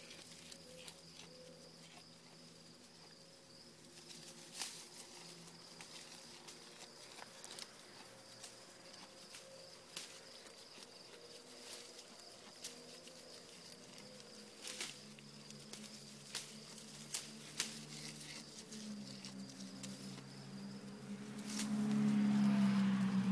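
Oberhasli goat browsing on weeds: scattered sharp snaps and crunches as it tears and chews leaves and stems. A faint steady high insect trill runs underneath, and a low droning hum builds over the last few seconds to become the loudest sound.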